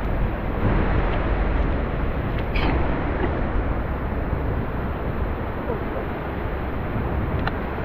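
Steady rushing of river water with wind buffeting the microphone as a low rumble, broken by a couple of light clicks.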